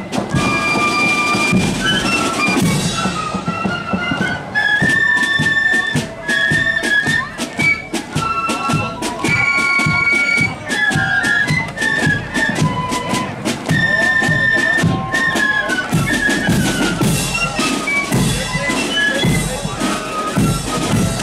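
Marching flute band playing a march tune in unison on high flutes, with drums beating a steady march time underneath.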